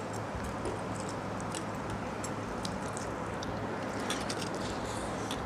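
Hands squeezing and mixing pakhala (cooked rice soaked in water) in steel bowls, then mouthfuls being eaten: scattered short wet squelches and smacking clicks over a steady low hum.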